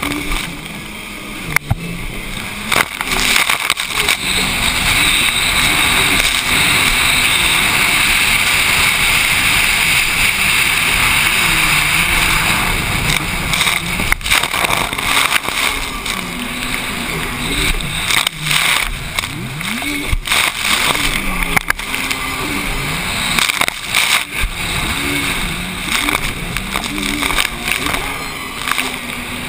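Racing jet ski engine running hard, its pitch rising and falling as the rider works the throttle through chop. Loud wind and water spray rush over the helmet-mounted microphone, with sharp knocks from time to time as the hull hits the waves.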